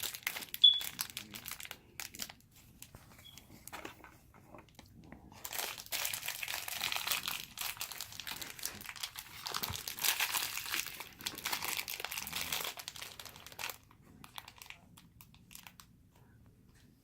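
A crinkly wrapper being handled and pulled open, with a few light clicks and taps at first, then several seconds of continuous crinkling that dies away near the end.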